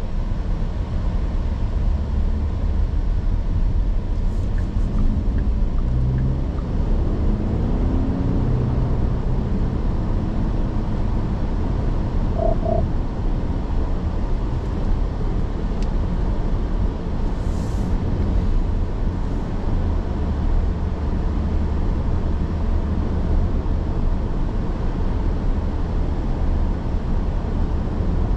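2024 Porsche Cayenne on the move: steady, deep road and engine noise with no break, with a brief double tone about twelve seconds in.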